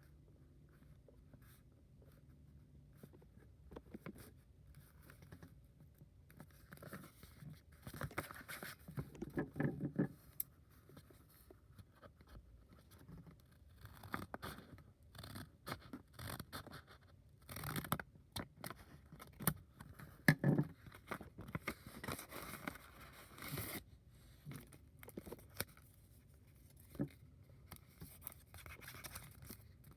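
Irregular scraping and rubbing of hands working at a cardboard box, in scattered bursts with a few sharp clicks.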